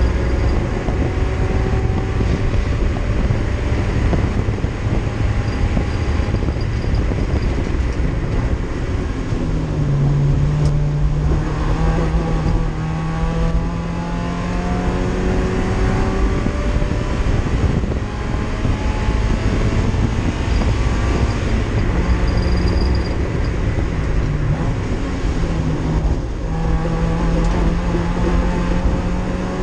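Race car engine heard from inside its stripped, roll-caged cabin, climbing in pitch as it accelerates and dropping back at each gear change, over steady road and wind noise.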